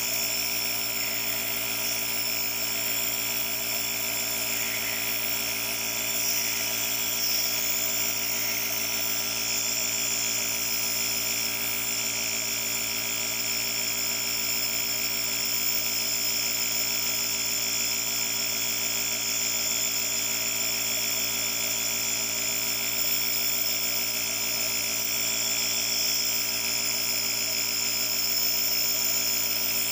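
Nebulizer compressor running steadily, a motor hum with a whine, under an even hiss of air and medication mist through the mask.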